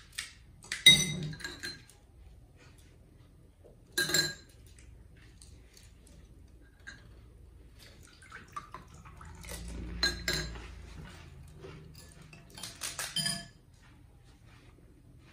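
Metal spoons clinking against glass serving bowls, a few separate ringing clinks: one about a second in, one near four seconds, then a cluster of clinks in the second half.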